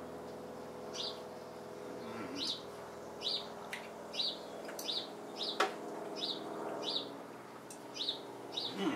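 A bird chirping over and over, one short high note about every second, over a steady low hum.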